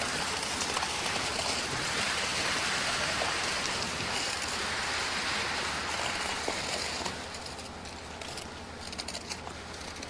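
Wet concrete rushing and splattering out of a concrete pump hose into a wooden form: a steady hiss that eases off about seven seconds in, with a few clicks near the end.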